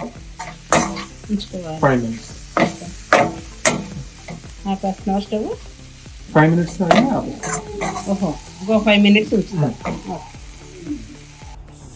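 A slotted metal spatula scrapes repeatedly around a metal kadai, turning chicken liver fry, over the sizzle of the frying masala. The scrapes come at an uneven pace, and some ring with a squeaky tone.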